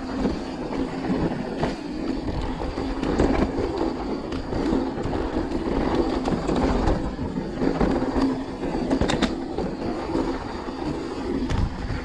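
Mountain bike descending a dry dirt trail: tyres rolling over dirt and loose stones, with steady rattling and clatter from the bike.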